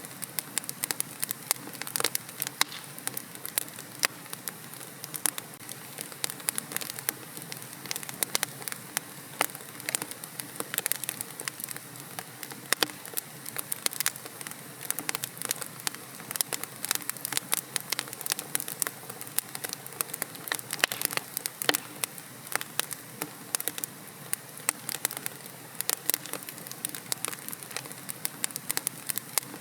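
Wood fire burning in a fireplace, crackling with many sharp, irregular pops and snaps over a soft steady hiss.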